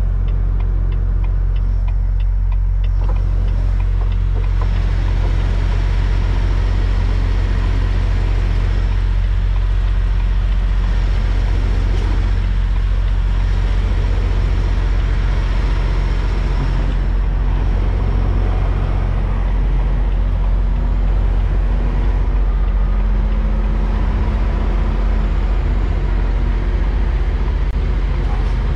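Semi-truck diesel engine running at low speed while the rig is manoeuvred and backed, heard from inside the cab as a steady low rumble.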